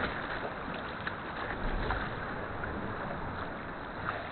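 Sea kayak paddling: water splashing and trickling off the paddle and along the hull, a steady watery hiss with a few soft, irregular splashes.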